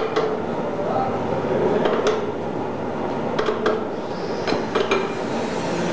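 A handful of sharp metallic clinks and knocks from a log cup-cutting machine's steel frame, carriage and clamps being handled, over steady workshop machine noise.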